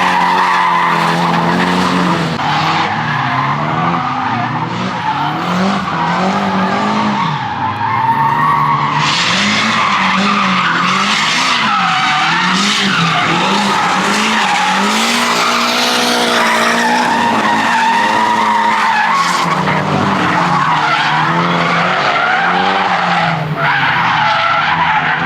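Drift car engine revving up and down repeatedly under hard throttle, over the continuous skid of tyres sliding through a drift run.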